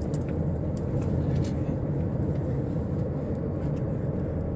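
Steady low rumble inside a car's cabin, with a few faint light clicks as a fidget spinner's bearing caps are worked at by hand.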